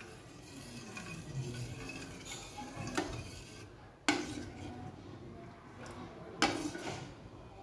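Steel ladle stirring a thick yogurt and gram-flour batter in a stainless steel pot, with soft scraping and the ladle clinking sharply against the pot three times.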